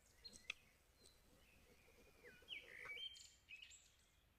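Faint bird chirps, a few short calls that slide in pitch, mostly in the second half, over near silence.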